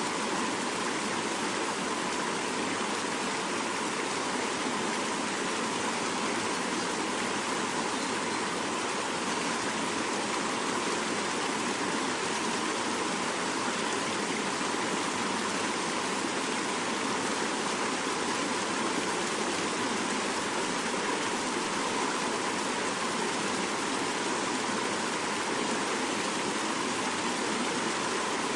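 Swift mountain river rushing steadily, an even, unbroken wash of flowing water.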